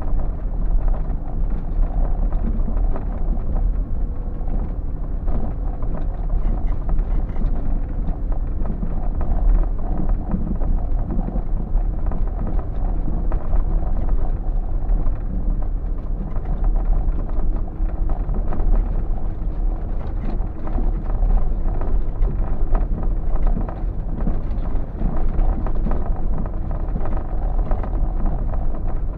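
Four-wheel-drive vehicle driving slowly over a rough gravel track, heard from inside the cab: a steady low rumble of engine and tyres with continuous jostling and rattling from the uneven surface.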